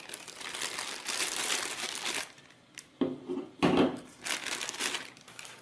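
A clear plastic bag crinkling as hands pull a battery charger out of it. There are two short, duller knocks partway through, and the crinkling comes back briefly near the end.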